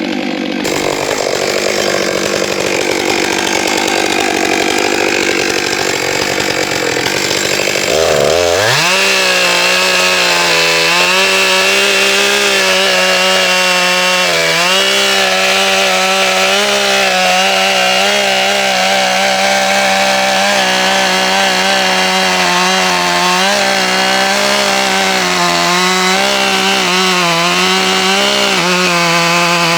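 Stihl 661 Magnum two-stroke chainsaw cutting a large oak log. About eight seconds in it revs up sharply and holds a steady high-revving note, sagging slightly now and then as the chain takes load in the wood.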